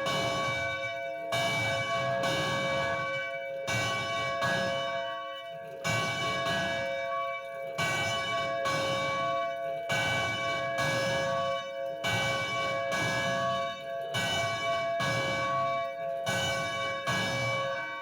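Church bell rung steadily, a strike roughly every second, each one ringing on into the next. The ringing stops near the end and the last strike dies away.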